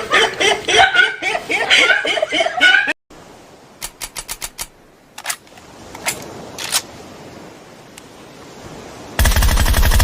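A voice chattering and laughing for about three seconds, then it cuts off to a quiet stretch with a quick run of clicks and a few single clicks. Near the end a loud, rapid rattle of many beats a second starts suddenly.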